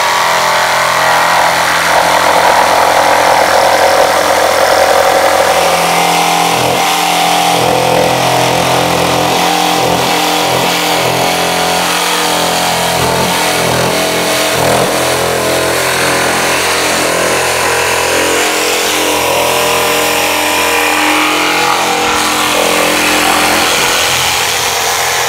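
Mafell P1CC jigsaw, with its 900 W universal motor, running and sawing through thick kitchen worktop: a steady motor whine under the rasp of the blade in the board. The cutting noise turns rougher and more uneven about six seconds in.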